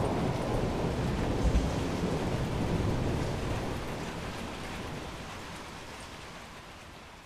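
Heavy rain with a low thunder rumble rolling through the first second or two, the whole sound then fading out steadily.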